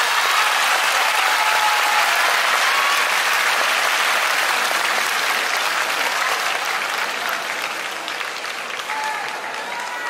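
Large arena crowd applauding, with a few scattered shouts; the clapping eases off over the last few seconds.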